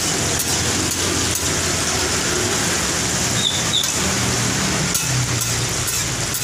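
Martabak telor frying in shallow oil on a wide flat pan, sizzling steadily, with a low hum underneath and two short high clinks about three and a half seconds in.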